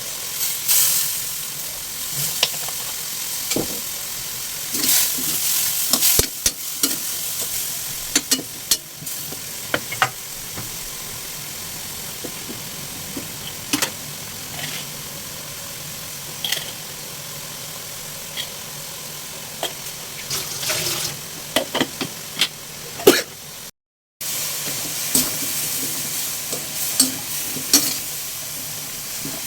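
Chicken feet sizzling in a frying pan while being stirred, with a spatula clicking and scraping against the pan again and again over a steady sizzle. The sound drops out briefly about three-quarters of the way through.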